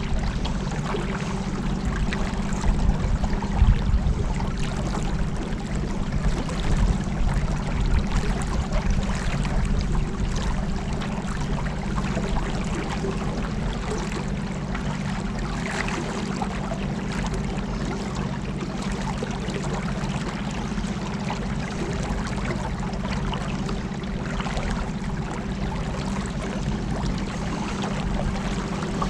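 Boat engine running at a steady cruising speed, a constant hum, with water rushing past the hull.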